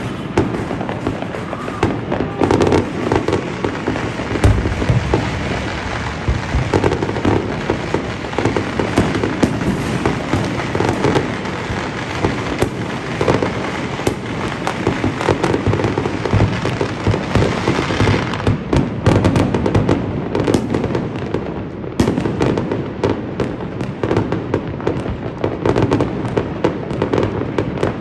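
New Year's fireworks and firecrackers going off in rapid succession: a dense, continuous crackle of pops and bangs that thins to more separate sharp cracks about two-thirds of the way through.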